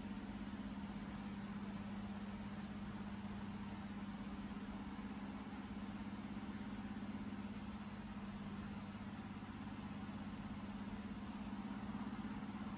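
A steady low hum runs unchanged, with a faint even hiss above it.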